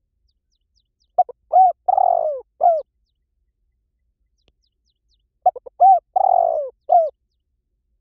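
Spotted dove cooing, two phrases about four seconds apart. Each phrase is a few short coos around one longer coo that falls in pitch.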